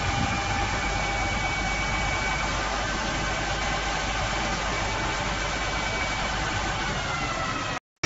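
Water tanker truck running steadily while it sprays water from its rear spray nozzles: a low engine hum under a dense, steady hiss of spray, with a few faint whining tones. The sound cuts off suddenly near the end.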